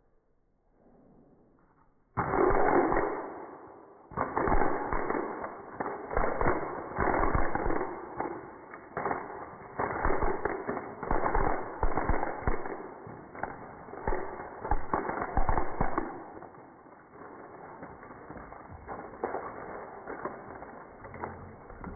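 Many spring-loaded mouse traps snapping shut in a dense, irregular run of clacks, with ping-pong balls clattering. It starts suddenly about two seconds in and thins out over the last several seconds.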